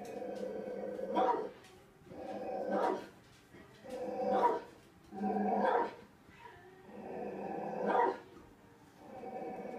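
Recorded guard-dog growling and barking played through a television's speakers: about six growl-and-bark bursts, each roughly a second long, repeating every second and a half or so.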